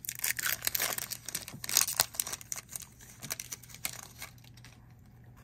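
Trading-card pack wrapper being torn open and crinkled in the hands, a dense run of irregular crackles that thins out over the last second or so.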